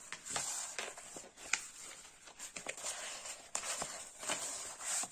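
Rustling and crinkling of a rolled diamond painting canvas and its plastic protective film as they are unrolled and pressed flat by hand on a table, in several uneven stretches with a few sharp clicks.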